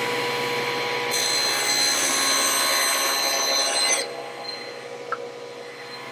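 Table saw running and crosscutting a plywood strip: a hissing cut sound rides over the motor's steady hum from about one second in to about four seconds in. After that the saw runs on more quietly with the blade clear of the wood.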